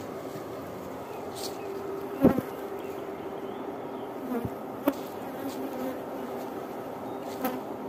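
Honeybees buzzing around beehives, a steady hum. There are three sharp knocks, the loudest about two seconds in, the others near the middle and near the end.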